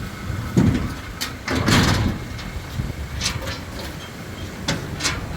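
Delivery truck's engine running low, with several loud knocks and scraping crashes over it, the biggest about half a second in and again between one and a half and two seconds.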